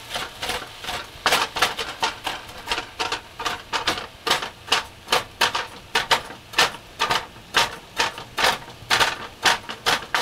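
Wooden spatula chopping and scraping ground turkey against a hot nonstick frying pan, a quick, even rhythm of about two to three strokes a second, over the sizzle of the meat cooking in the dry pan.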